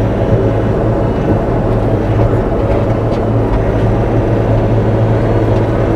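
Bobcat E42 mini excavator's diesel engine running steadily under work with a low, even drone while it digs into the dam.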